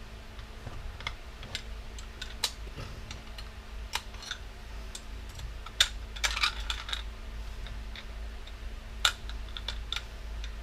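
Small metal and plastic parts from a dismantled electric power washer clicking and clinking as they are handled and sorted, in irregular sharp clicks with a busier cluster about six to seven seconds in. A low steady hum runs underneath.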